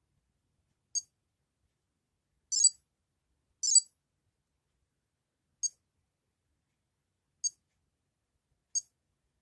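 Tamagotchi Meets handheld pet toy's small speaker beeping: six short high beeps spaced unevenly, the second and third longer and louder than the rest.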